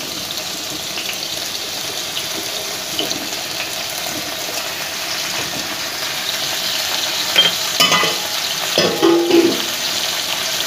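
Eggplant slices frying in hot oil in a non-stick pan: a steady sizzle that grows a little louder as the pan fills, with a few sharp knocks and clatters near the end.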